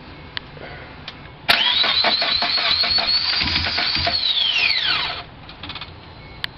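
2000 Chevy Tracker's 2.0-litre four-cylinder being cranked by its starter for about three and a half seconds, turning over in even pulses under a high starter whine without catching, then the whine falling away as the key is released. This is the first start attempt after a timing chain replacement, and the engine does not fire.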